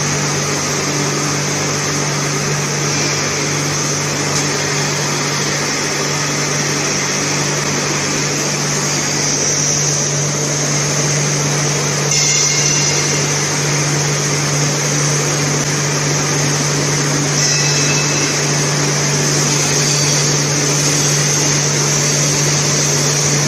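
Plastic crate washing machine running with its high-pressure water spray: a steady low motor drone under a constant hiss of water jets, the hiss shifting briefly about twelve and seventeen seconds in.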